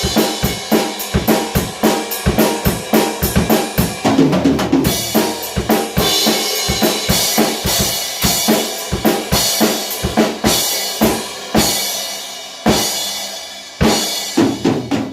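Drum kit played fast: quick snare and bass-drum strokes, with cymbal crashes ringing out several times in the second half.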